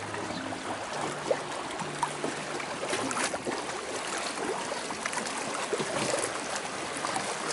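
Tidal current rushing and swirling past a sailboat's hull: a steady hiss of moving water with many small splashes and gurgles. It is the strong flow of the tide turning in the bay, running like a river.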